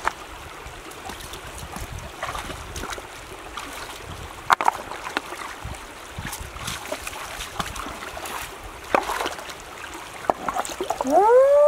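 Shallow stream running over stones, with light splashes as someone wades in and stirs the water with their hands. Near the end, a short high call rises and falls.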